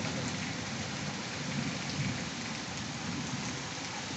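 Steady rain falling on the street and the wet balcony ledge.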